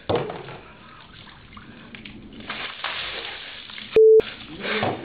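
A man gasping and exclaiming from the shock of ice water just poured over him, with water spattering around him. About four seconds in, a short, loud steady electronic bleep briefly replaces all other sound, like a bleep dubbed over a word.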